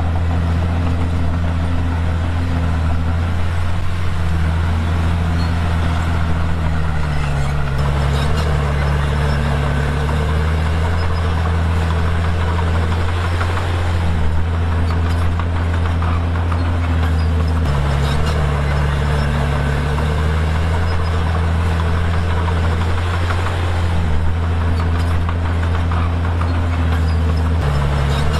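Komatsu D51PX bulldozer's diesel engine running loud and steady, its pitch sagging and recovering every few seconds as the blade loads up pushing and spreading stone.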